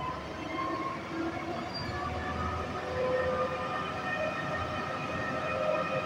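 Sany truck-mounted concrete pump running while its boom is moved: a steady hydraulic whine of several held tones over a low engine rumble, growing a little louder about three seconds in.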